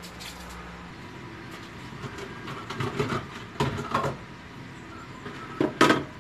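Kitchen handling noises: a few knocks and clatters of things being picked up and set down, the loudest near the end. A low hum stops about a second in.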